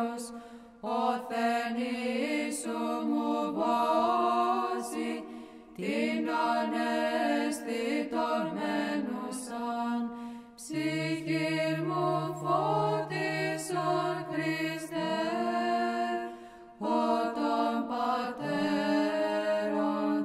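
Orthodox chant sung by voices in long phrases with short breaths between them, in the Byzantine manner of the Greek hymn the video opens with, with a low note held steadily under the melody in the second half.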